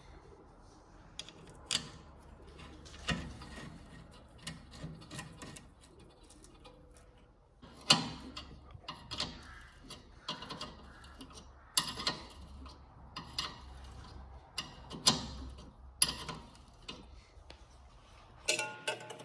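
Irregular metallic clinks and knocks of hand tools and brake parts being handled during a brake pad job, each with a short ring. Near the end comes a quicker run of small ticking clicks.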